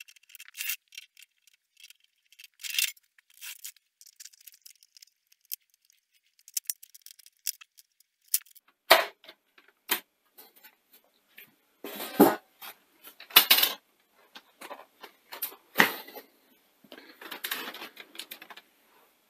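Metal cover panels being lifted off a VHS video recorder and the machine's casing being handled: scattered light metallic clicks and rattles, then heavier knocks and clatters from about nine seconds in.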